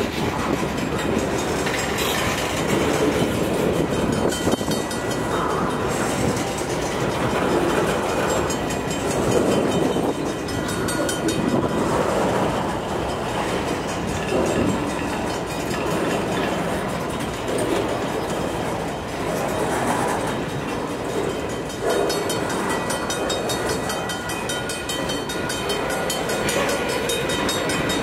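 Canadian National freight train pulling away from a standstill: two GE Evolution Series diesel locomotives working under load as the train rolls along the track, with wind noise on the microphone.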